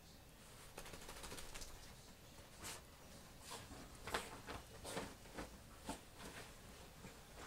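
Faint rustling and scratching of bedding as a small dog moves about on a duvet and pillows: a dense patch of rustle about a second in, then a string of separate soft scrapes.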